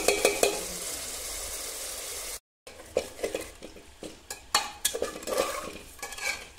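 Metal spatula stirring chicken curry in an aluminium pot, scraping and knocking against the pot's sides while the curry sizzles. The sound drops out for a moment about two and a half seconds in; after that the sizzle is fainter and the spatula scrapes stand out as separate strokes.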